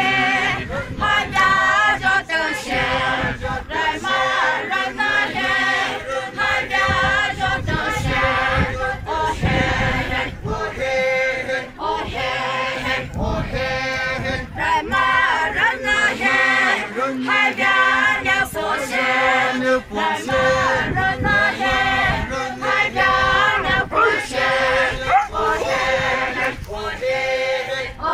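A group of men and women singing together in a traditional chant, many voices in unison, carrying on without a break.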